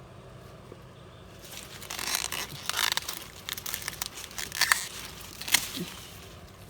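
Dry corn leaves and husks rustling and crackling as an ear of corn is pulled off the stalk, with a few sharp cracks near the end.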